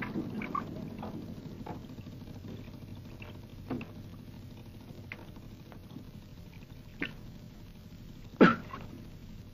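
A few short knocks from a wooden sampan as a man walks barefoot along it, over faint background noise. The loudest knock comes near the end.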